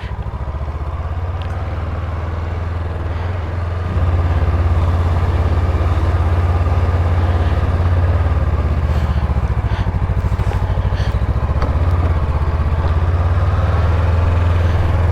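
Adventure motorcycle's engine running as the bike rides off, a steady low drone that gets louder about four seconds in.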